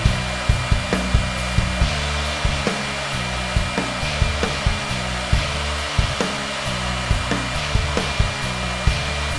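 High-speed engraving spindle on a 3-axis CNC lathe running steadily with a high whine, its bit cutting letters into a baseball bat. Background music with a steady beat plays underneath.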